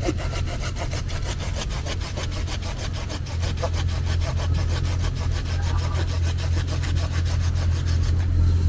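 Hand pruning saw cutting through a green apple water sprout in quick, even back-and-forth strokes, over a steady low hum.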